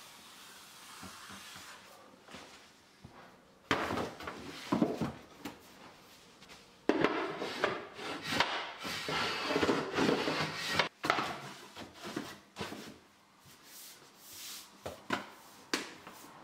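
Hand work on a hardboard template laid over wooden floorboards: faint scratching of a marker pen at first, then the board and a long spirit level being slid, scraped and knocked against the floor in irregular bursts, loudest in the middle, with scattered knocks near the end.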